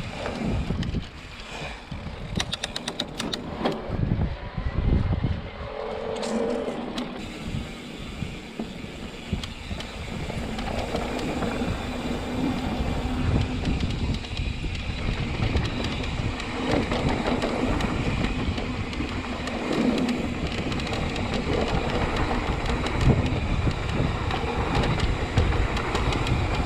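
Mountain bike riding noise on a dirt trail: wind rumbling on the microphone and tyres rolling over the ground, with a short run of rapid clicks a few seconds in.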